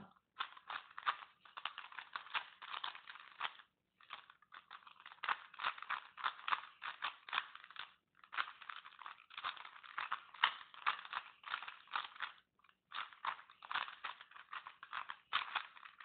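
Rubik's cube being turned by hand: quick runs of plastic clicks and clacks as the layers snap round, broken by short pauses about 4, 8 and 12 seconds in. The turns are the moves that solve the cube's yellow last layer.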